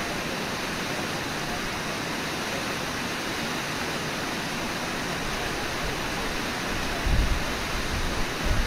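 Steady rushing roar of Brooks Falls and the whitewater rapids below it, with a few low rumbles swelling up about seven seconds in and again near the end.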